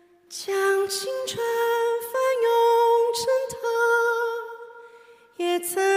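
Background music: a slow, gentle melody of long held notes. It fades out about four and a half seconds in, and the next phrase starts just before the end.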